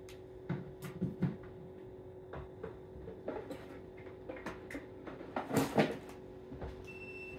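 Knocks and clicks of a charging cable and plug being handled and connected to a portable power station, loudest about five and a half seconds in. A steady low hum runs underneath, and a short high beep sounds near the end.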